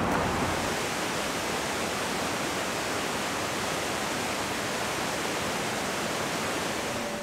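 Steady rush of a mountain stream tumbling over rocks as whitewater.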